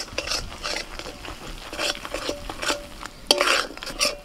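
Spatula scraping and stirring thick spice masala in a metal karai, a few short strokes a second, as the spice paste is fried until its oil separates. A sharp knock of the spatula against the pan a little over three seconds in.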